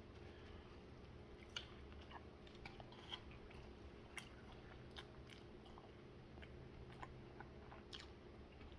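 Faint chewing of a crispy chicken sandwich: scattered small mouth clicks and smacks over a low steady hum.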